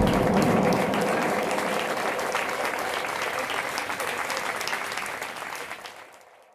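Applause, fading steadily until it dies out near the end.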